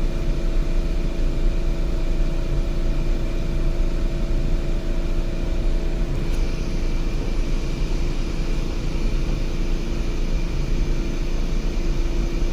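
2011 Volkswagen Tiguan's 2.0-litre turbocharged four-cylinder engine idling steadily with a constant hum. It runs only because its fuel pump is being powered through a test-light jumper around a failed fuel pump control module.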